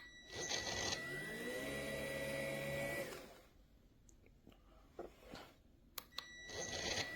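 BISSELL PowerClean cordless stick vacuum's motor switched on, spinning up with a rising whine and running steadily for a couple of seconds, then switched off and winding down. After a few clicks it is switched on and spins up again near the end.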